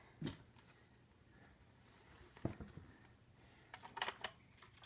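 A few light clicks and taps of plastic toy parts and packaging being handled: one just after the start, one about two and a half seconds in, and a small cluster near the end, with quiet between.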